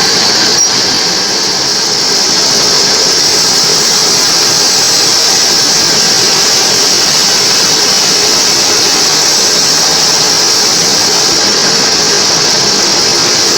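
Homemade bandsaw sawmill running steadily as it saws mahogany lengthwise into thin boards: a loud, even machine noise with a strong high hiss. There is a single faint click about a second in.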